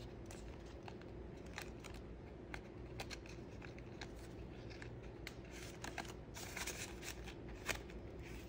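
Faint rustling of paper banknotes and the clear plastic pockets of a cash-envelope binder being handled, with scattered soft clicks and crinkles.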